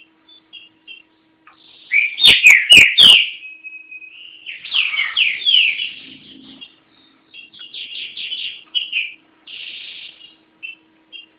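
Green-winged saltator (trinca-ferro) singing: short whistled chips, then loud, rich rapid phrases of slurred whistles, repeated several times. Three or four sharp clicks sound over the loudest phrase about two seconds in.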